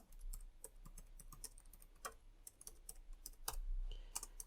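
Typing on a computer keyboard: quick, irregular keystrokes, with a few louder key presses, over a faint low hum.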